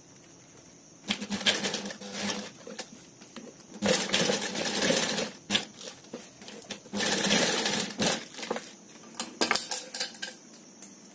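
Industrial sewing machine stitching a zipper onto a fabric panel, running in stop-start spurts. It starts about a second in and makes three longer runs, with shorter spurts and clicks between them as the panel is turned and repositioned.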